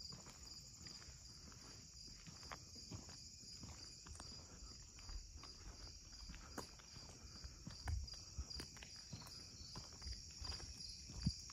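Insects chirping in a steady, pulsing high trill, with scattered soft thumps and a few sharp clicks of footsteps underneath.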